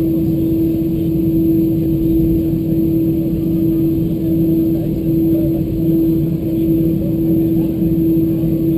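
Cabin noise of an Airbus A320-214 taxiing, its CFM56-5B engines at taxi idle: a steady hum with one strong, held low tone over a rumble.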